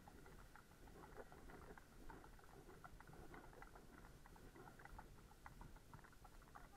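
Quiet, irregular clicking and tapping from a horse walking on a wet tarmac lane, its hooves and tack, over a faint low rumble.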